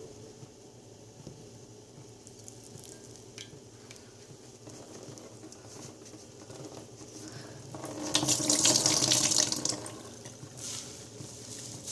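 Water running from a tap for about two seconds, starting about two-thirds of the way in, after a stretch of faint handling noise.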